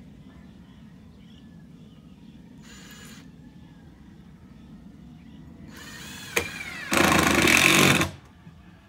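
Handheld power tool triggered in short bursts. A brief run about three seconds in, then a rising whine as it spins up, then about a second of loud running under load near the end.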